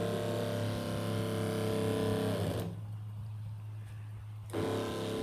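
Shurflo 12 V diaphragm spray pump running, pumping water from the tank into the drip irrigation line, with a steady buzzing hum. The sound thins out to a low hum about two and a half seconds in, then comes back full briefly near the end.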